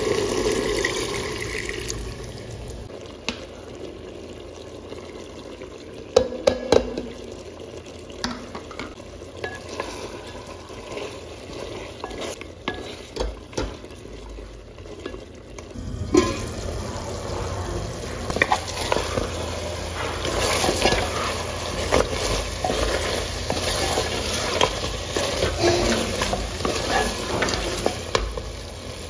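Wooden spatula stirring a pot of pig's trotters stewing in an aluminium pressure-cooker pot, with clicks and scrapes against the metal over the sizzle of the cooking liquid. It opens with broth being poured in, and about halfway through the stirring turns louder and busier.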